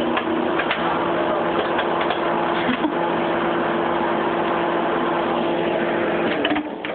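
Microwave oven running with a steady hum while a bag of microwave popcorn pops inside it, with scattered sharp pops. The oven hum cuts off near the end.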